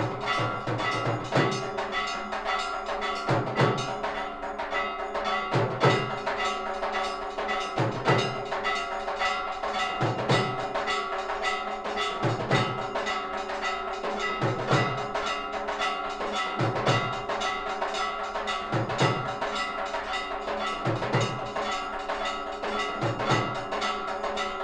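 Temple bells ringing and clanging rapidly during an aarti, their tones held steady under a constant stream of strikes, with a deep drum stroke about every two seconds.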